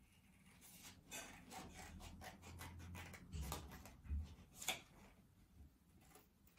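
Scissors snipping through folded paper, a quiet run of short cuts and paper rustles, with the sharpest snips a few seconds in.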